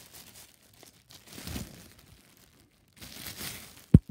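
A present's paper wrapping being torn and crinkled in three rips, then a sharp knock just before the end.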